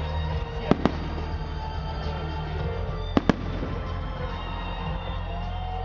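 Fireworks display: two pairs of sharp bangs, one about a second in and another about three seconds in, over a steady low rumble of distant bursts.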